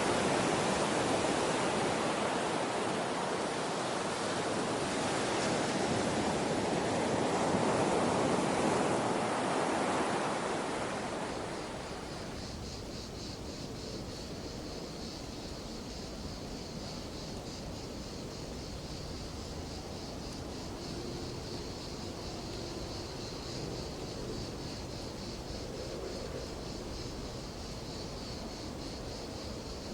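Ocean surf rushing and swelling as a steady roar of water. About eleven seconds in it gives way to a quieter scene filled with a high, rapidly pulsing insect chorus over faint background noise.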